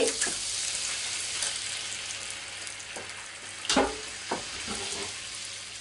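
Fresh orange juice poured into hot oil and pork fat in a frying pan, sizzling hard at first and slowly easing to a steadier, quieter sizzle as the juice starts turning into a sauce. A couple of light knocks about four seconds in.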